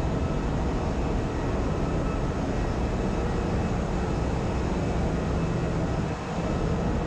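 Steady drone of a ship's engine room: running machinery blending into one constant, fairly loud noise with a low hum underneath.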